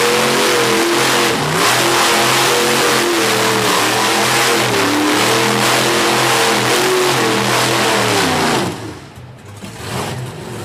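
Monster truck's V8 engine revving hard, its pitch repeatedly rising and falling as the truck spins and turns on dirt. Near the end the engine drops off sharply for about a second, then starts to come back.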